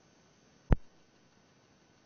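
A single sharp thump on a microphone, about two-thirds of a second in, over quiet room tone.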